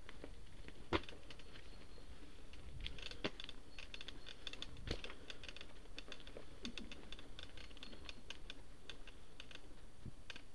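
Mountain bike riding over a stony forest trail: irregular rapid clicks and rattles from the bike and the gravel under the tyres, with a few louder knocks, over a steady low rumble.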